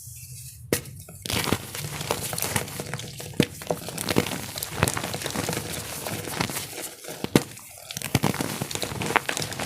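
Star-shaped gym chalk being crushed and crumbled: after a short pause, a dense run of crunching and crackling begins about a second in, with a few sharper, louder snaps along the way.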